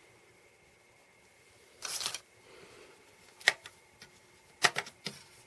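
Hands handling memory sticks and their plastic packaging: a short rustle about two seconds in, then a few sharp plastic clicks and taps near the end.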